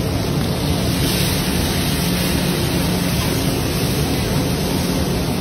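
Masala-coated whole pomfret shallow-frying in hot oil in a wide pan: a steady sizzle, with a steady low hum underneath.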